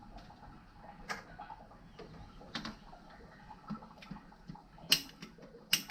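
A few sharp clicks and light knocks at irregular intervals, with a louder pair near the end, from plastic plumbing pipe, fittings and tools being handled.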